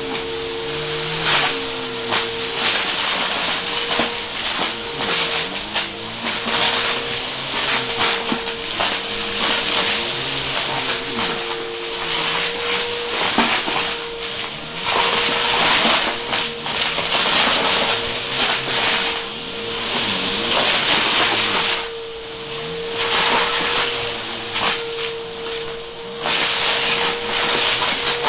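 Bissell upright vacuum cleaner running with a steady motor whine, pushed back and forth over carpet covered in gritty debris and confetti. The debris crunches and rattles up the nozzle, and the noise swells and eases with each pass.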